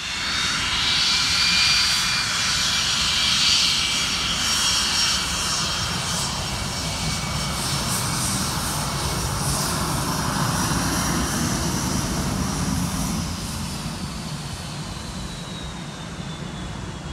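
Jet engines of a rear-engined Delta twinjet airliner, running loud as it rolls along the runway on its takeoff run, with a high whine over the roar. The sound eases in the last few seconds and the whine falls in pitch as the jet moves away.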